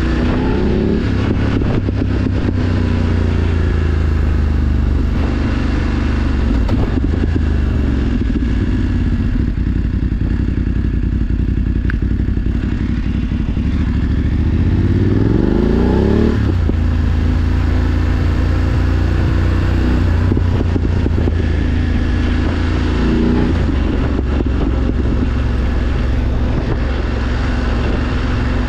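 BMW F 850 GS Adventure's parallel-twin engine running under way. Its pitch climbs steadily and drops sharply at gear changes: once just after the start, once a little past halfway after a long rise, and again about three quarters through.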